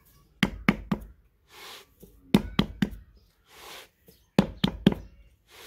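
Bare hands patting and slapping damp clay as a potter shapes a clay pot lid: three quick bursts of three or four knocks, about two seconds apart, with a soft hiss between the bursts.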